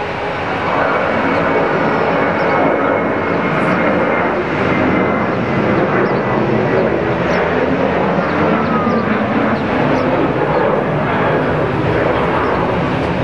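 Jet airliner's engines at takeoff thrust as it climbs out: a loud, steady rush of jet noise, with faint whines gliding slowly down in pitch.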